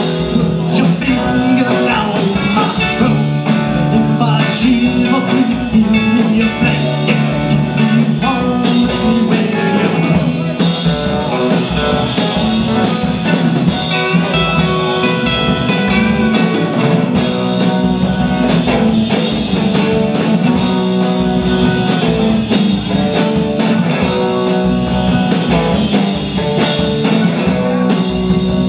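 Live band playing a rock song: electric guitars, bass guitar and a drum kit, with a singer's voice over them.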